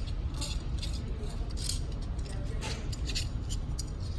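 Irregular light clicks and small rattles of a film reel and camera parts being handled as film is wound tight on the reel, over a low steady rumble.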